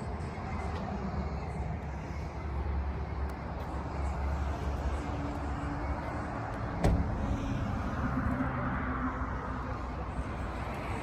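A vehicle engine running steadily with a low rumble, and a single sharp click about seven seconds in.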